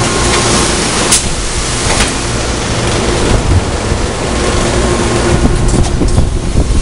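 Steady industrial machinery noise: a loud hissing rush over a low hum, with a few sharp clicks about one and two seconds in.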